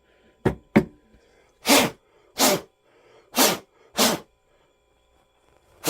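Two light clicks, then five short blasts of compressed air from a blow gun, about a second apart, blowing out small cleaned petcock parts.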